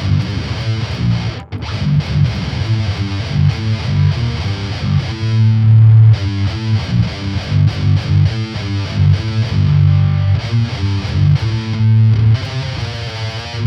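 Heavily distorted Aristides electric guitar playing a low, rhythmic metal riff, with a couple of longer held notes partway through.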